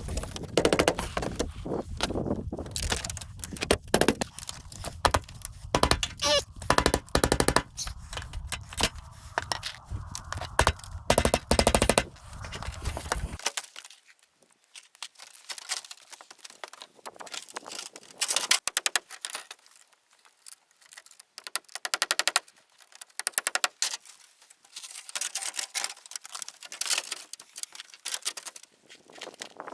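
Sped-up sound of cabin restoration work: a dense, rapid clatter of knocks and clicks. The low rumble under it cuts off suddenly about thirteen seconds in, leaving sparser, thinner clicking.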